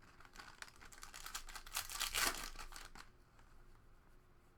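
Crinkling of a plastic trading-card pack wrapper being torn and handled, a close run of crackles that builds to its loudest about two seconds in and stops about three seconds in.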